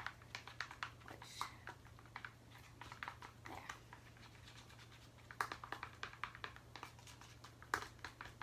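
Irregular light clicks and scratches of a stick stirring glitter into glue in a bowl, busiest about two thirds of the way through.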